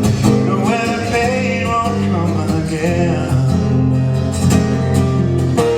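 Acoustic guitar playing a brief instrumental passage of a live folk song between sung lines.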